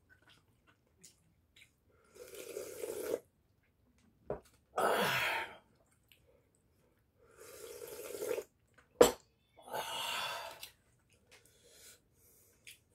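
Soup slurped from a bowl twice, each rising sip followed by a loud breathy exhale, with a sharp click between the second sip and its exhale.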